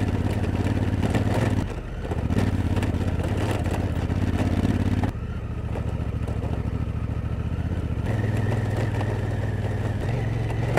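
Honda Africa Twin CRF1000L's parallel-twin engine running at low, steady revs, with a sudden change in tone about halfway through.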